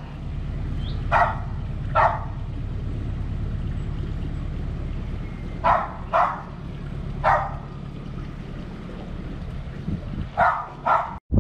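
A dog barking in single sharp barks, seven in all, some in quick pairs. Under them runs the steady low hum of a narrowboat's diesel engine, which weakens near the end.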